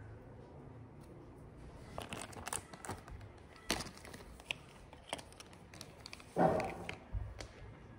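Plastic wrapper and small parts of a COVID-19 rapid antigen test kit crinkling and clicking as they are handled, in scattered short bursts from about two seconds in. One louder, fuller burst comes about six seconds in.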